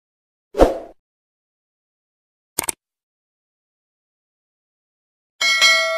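Subscribe-button animation sound effects: a short whoosh about half a second in, a quick click at about two and a half seconds, and a bell-like notification chime near the end that rings on and fades.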